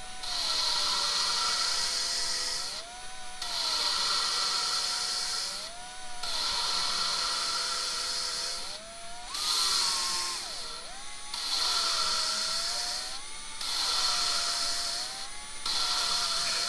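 A cordless drill spins a new valve against its seat in a 302 Cleveland cylinder head, lapping it in with fine valve grinding paste. A steady motor whine runs over a gritty grinding hiss in about six runs, with short breaks where the valve is lifted to let more paste in and pulled back onto the seat. The grinding note changes as the paste gets pushed out of the seat.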